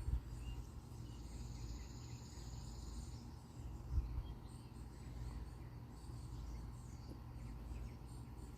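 Outdoor yard ambience: faint high bird chirps and a brief high trill starting about a second in, over a low rumble, with a single thump about four seconds in.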